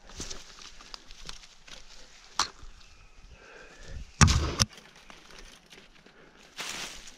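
Handling and footsteps around a rope-and-pulley hauling rig in dry brush: scattered sharp clicks and rustling, with one heavy thump a little after four seconds in.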